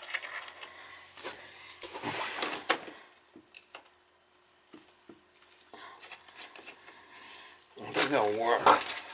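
Light metallic clicks and scrapes of brass toilet closet bolts and washers being handled and slipped into the slots of a toilet flange, with a man's voice near the end.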